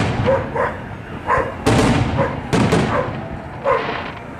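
Aerial fireworks shells bursting with loud booms, about four in the space of a few seconds. Between the booms a dog barks repeatedly.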